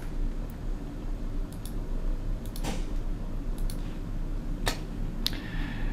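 A computer mouse clicking about three times, short sharp clicks over a steady low hum.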